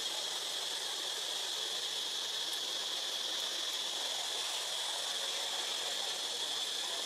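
Steady, high-pitched insect drone of forest cicadas: an even hiss that neither breaks nor changes in level.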